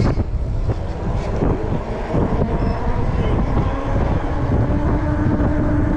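Wind buffeting the microphone of a camera riding along on a moving e-bike, a dense low rumble. A faint steady hum comes in about halfway through.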